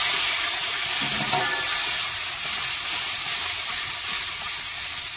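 Onion, whole garlic, green chillies and whole spices sizzling in hot oil in a kadai: a steady frying hiss that slowly gets quieter.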